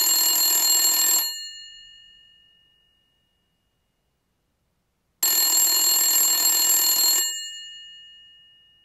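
A bell ringing in two bursts of about two seconds each, about six seconds apart. After each burst its tone fades away over a second or more.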